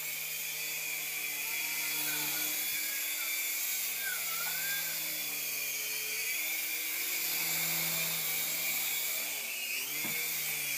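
Toy remote-control helicopter flying, its small electric motor and rotors making a steady high-pitched whine that wavers in pitch a few times.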